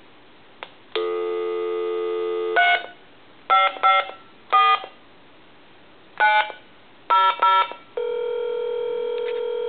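Telephone line tones from a Dragon novelty phone placing a call: a steady dial tone, then about seven short touch-tone (DTMF) digits dialled, mostly in quick pairs, then a ringback tone starting near the end as the called line rings.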